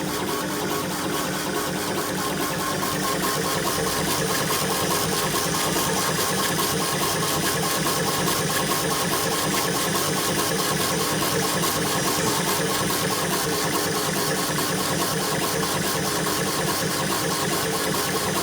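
CNC router–CO2 laser combo machine running steadily at work, a continuous mechanical drone with a fast, even pulsing, growing slightly louder in the first few seconds.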